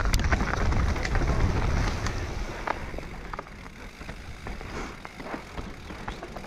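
Mountain bike rolling down a rough trail. Its frame and chain rattle in many short sharp clicks over a low rumble of wind on the microphone, which is strongest for the first two seconds and then eases.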